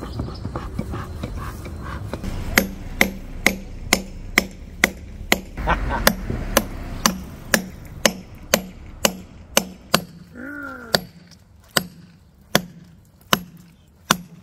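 Hammer striking a steel chisel held against a brick wall, chiselling into the brickwork: sharp ringing blows at a steady rhythm of about two a second, which slow to about one a second near the end.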